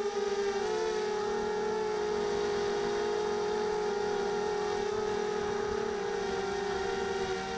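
Quadcopter's Sunnysky 2204 2100 kV brushless motors and propellers whining steadily as it flies, the pitch shifting slightly with throttle, heard from the craft's onboard camera.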